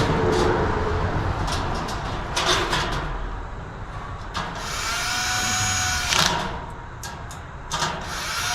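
Cordless drill-driver whirring for about a second as it drives a screw into the galvanized steel nesting-box panels, starting again near the end, with a few sharp metal clanks of the panels in between.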